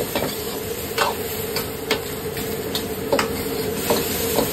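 Metal wok ladle clanking and scraping against a carbon-steel wok in irregular strokes, about two a second, as shredded chicken and vegetables are stir-fried with a steady sizzle. Under it runs the steady hum of the gas wok range.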